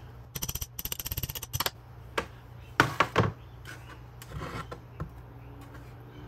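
Small claw hammer tapping quickly on a steel punch, driving a stuck pin out of an old motorcycle rear brake caliper: a rapid run of light metallic taps, about nine a second, for roughly a second and a half. A few louder knocks follow about three seconds in, then faint handling of the caliper.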